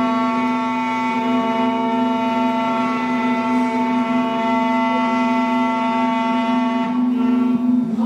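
Alpha automatic key cutting machine's spindle running with a steady whine as its cutter mills the track of a Honda laser key blade; the tone wavers and dips briefly near the end.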